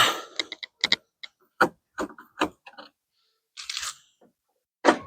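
Sharp clicks and knocks of bumper screws and hand tools being handled, with a short scrape about three and a half seconds in and a louder knock near the end.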